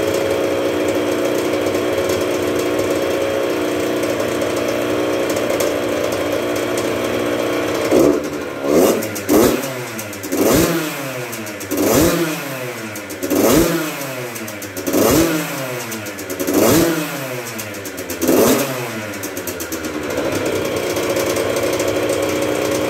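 A 1996 Yamaha YZ80's 80cc two-stroke engine is running on its first start after a full rebuild. It idles steadily, then is revved repeatedly, about every second and a half, from about eight seconds in. It settles back to idle near the end.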